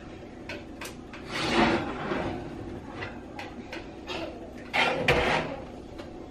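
Kitchen handling clatter: scattered clicks and knocks as metal baking pans are handled and set down on an electric stovetop. The loudest is a heavy clunk with a scrape about five seconds in.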